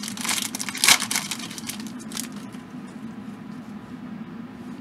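Wrapper of a Topps baseball card pack being torn open and crinkled. The tearing is loudest about a second in and dies down after about two seconds to a faint rustle as the cards come out.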